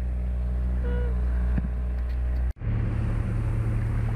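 Outboard motor on a Laser 16 sailboat running at a steady drone as it pushes the boat through calm water. The sound drops out abruptly about two and a half seconds in. It then comes back with a deeper, rougher engine note and more water and wind hiss.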